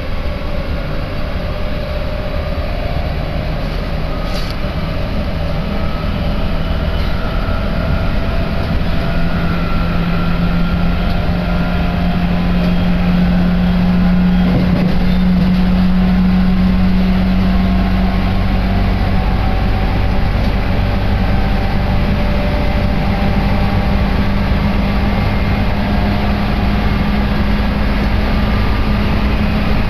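Inside a Tokaido Line electric commuter train running between stations: a steady rumble of wheels on rails, with a motor hum that rises slowly in pitch as the train gathers speed.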